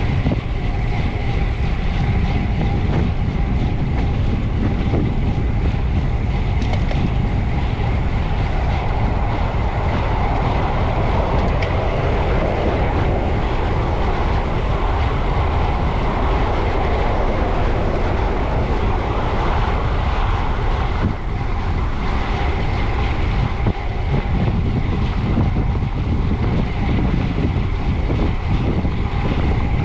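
Wind rushing and buffeting over a bicycle-mounted camera's microphone, with road and tyre rumble from a road bike ridden at full effort; steady throughout.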